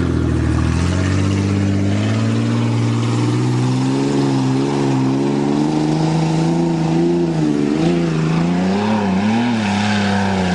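Ford Ranger pickup's engine revving up over the first second, then held at high revs for a long pull, its pitch dipping and wavering toward the end.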